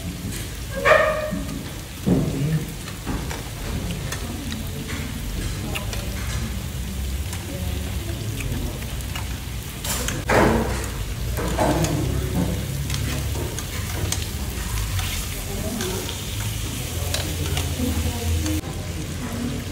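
Meat sizzling steadily on a hot tabletop grill pan, with a few light clicks of metal tongs against the pan as pieces are laid down and turned.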